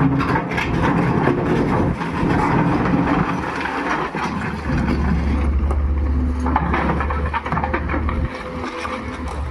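Excavator at work: diesel engine running with a steady low rumble and a held whine, with repeated clanks and rattles throughout.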